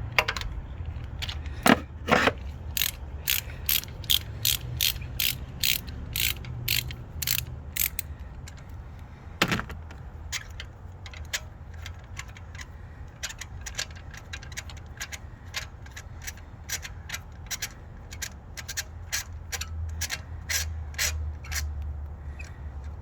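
Hand ratchet with an extension and 14 mm socket clicking in long runs of about three clicks a second as it is worked back and forth, unscrewing a spark plug. A few louder single knocks stand out near the start and about ten seconds in.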